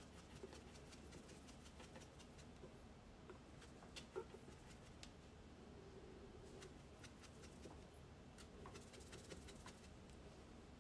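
Near silence: room tone with a few faint, scattered light ticks, one slightly louder about four seconds in.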